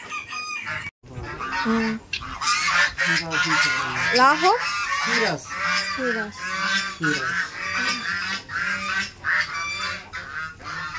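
A loud, dense chorus of many birds calling at once, the overlapping calls rising and falling in pitch, with a brief break about a second in.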